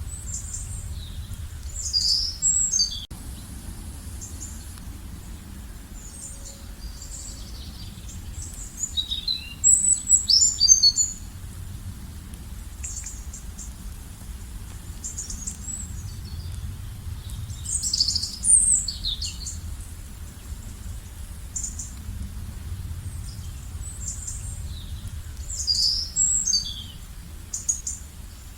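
Songbirds singing short, high, twittering phrases, a burst about every eight seconds, over a low steady background rumble.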